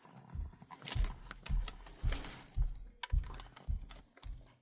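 Freshly lubricated Athearn SW1500 HO-scale switcher running on a test track: a regular clicking and knocking about twice a second, at a moderate level.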